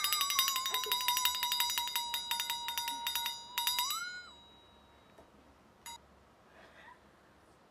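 Electronic alarm-like buzzing tone, pulsing fast and sliding slowly down in pitch, then rising briefly and cutting off about four seconds in. After that only faint room tone, with one short click near the end.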